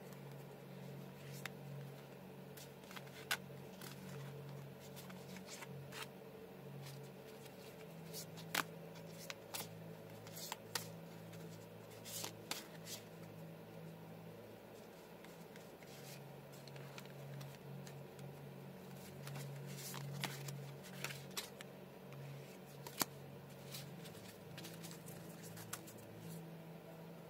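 Tarot cards being shuffled and handled: scattered light snaps and taps of card stock, some closely bunched, over a steady low hum.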